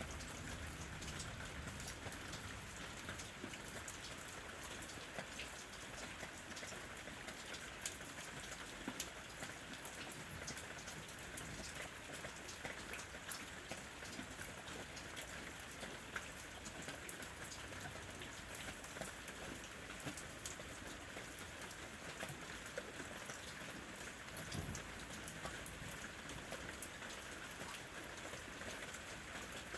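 Steady rain falling, with many separate drops ticking and spattering on a surface.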